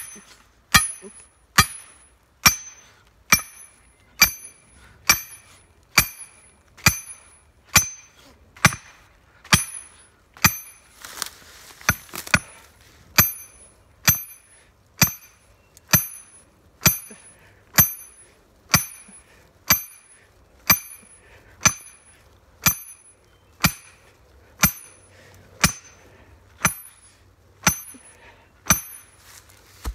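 Sledgehammer pounding a steel punch into rocky ground, a steady blow about once a second, each a sharp metallic clang with a short ring.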